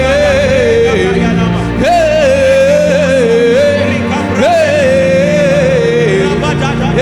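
Worship music: a voice sings a wordless "eh eh eh" chant in repeated phrases about every two and a half seconds, each starting with a rise in pitch and then stepping down, over steady held chords.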